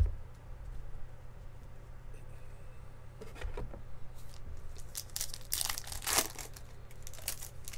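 A foil baseball card pack wrapper being torn open and crinkled, in a short burst about three and a half seconds in and a longer run from about five seconds, after a single knock at the start.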